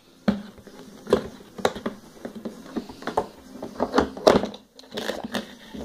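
Cardboard toy blaster box being handled and opened: irregular scrapes, rustles and small knocks, with a sharper knock about four seconds in.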